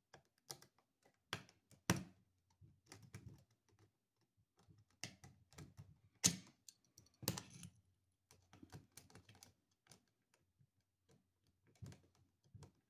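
Small Phillips screwdriver backing out the belt-clip screws on a Baofeng UV-5 handheld radio: quiet, irregular clicks and ticks as the driver works the screws, with a few louder clicks about 2, 6 and 7 seconds in.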